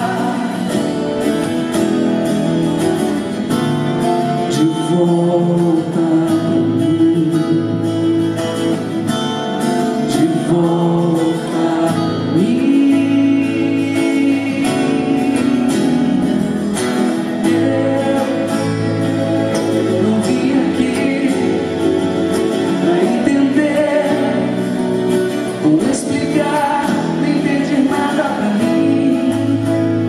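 A woman singing live with her own acoustic guitar accompaniment, the voice carrying the melody over the plucked and strummed guitar.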